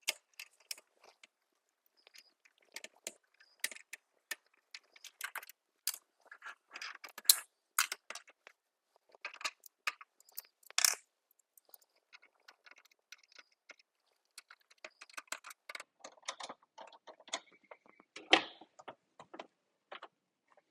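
Irregular clicks, rattles and scrapes of plastic blaster parts and small screws being handled while a Nerf Rival Hera blaster is taken apart, with a few louder knocks.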